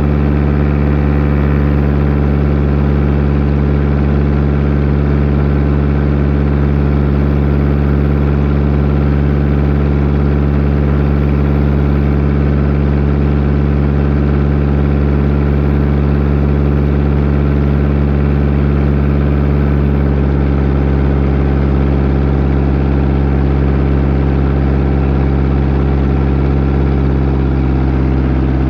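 Floatplane engine and propeller running steadily at low power while taxiing on water. The pitch drops slightly about twenty seconds in.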